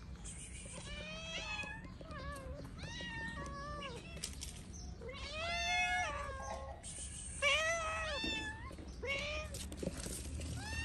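Stray cats meowing for food, a string of separate meows about one a second that rise and fall in pitch, the loudest a little past the middle.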